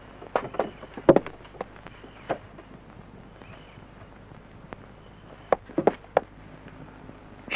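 Irregular knocks and footfalls on wooden boards. A cluster comes about a second in, with the sharpest knock there, and another cluster around six seconds in; between them the room is fairly quiet.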